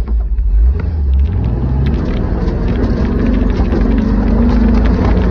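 1977 Chevrolet Scottsdale pickup's engine revving up about a second in, then running hard and steady under load as the truck drives at a sand hill climb, heard from inside the cab.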